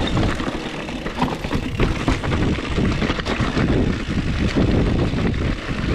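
Mountain bike rolling down a rocky singletrack: tyres crunching over stones and the bike rattling with many small knocks, under a steady rumble of wind on the action camera's microphone.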